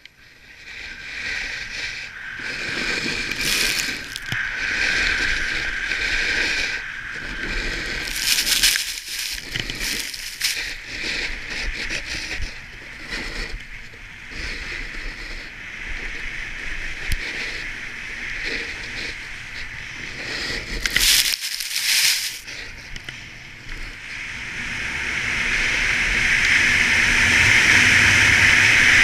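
Snowboard edges carving and scraping over groomed snow, with a few louder scrapes as the board turns. Wind rushing over the helmet camera grows louder over the last few seconds as the board picks up speed.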